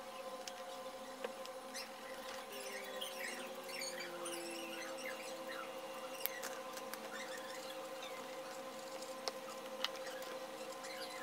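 Colouring strokes on sketchbook paper with a coloured pencil and a marker tip: many short squeaky, scratchy strokes, densest in the first half, with a few sharp clicks. A steady faint hum lies under them.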